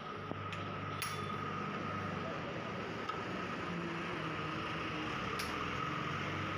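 Steady mechanical hum with a faint high whine, and two sharp metallic clinks, about a second in and near the end.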